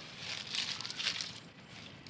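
Dry grass and leaves rustling and crackling under a person's hands and body as he shifts and gets up from the ground, loudest about half a second to a second in.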